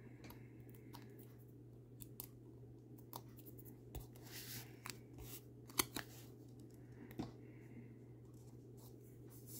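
Faint scattered ticks and paper rustling from handling a small paper cutout backed with Stampin' Dimensionals foam adhesive dots, which is pressed onto a card front near the end. The sharpest tick comes about six seconds in, over a steady low hum.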